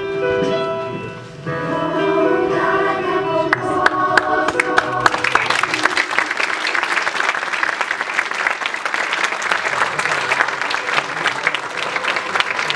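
Music with long held sung notes, with the first claps joining in about three and a half seconds in; from about five seconds on, a theatre audience applauding steadily.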